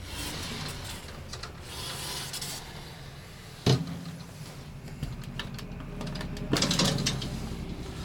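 A closet door being handled: rubbing and scraping, with one sharp knock a little under four seconds in and another spell of louder scraping near seven seconds.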